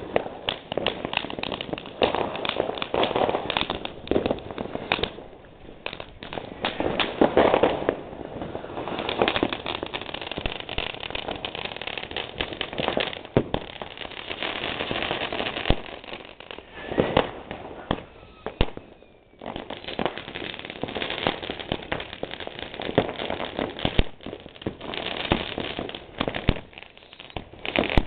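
New Year's Eve consumer fireworks and firecrackers going off nonstop: dense crackling with many sharp bangs, a few of them standing out louder than the rest.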